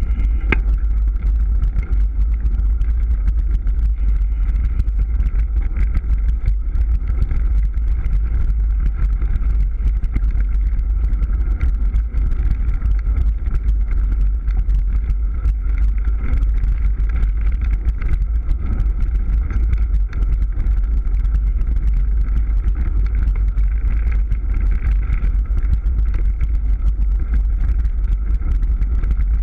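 Mountain bike ridden fast down a dirt forest trail: heavy wind rumble on the camera's microphone, with the frequent small rattles and knocks of the bike over the rough ground.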